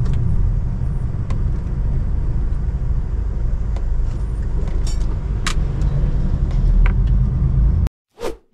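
Steady engine and road rumble inside a moving lorry's cab, with a few light clicks. It cuts off abruptly near the end and is followed by one short, sharp sound effect.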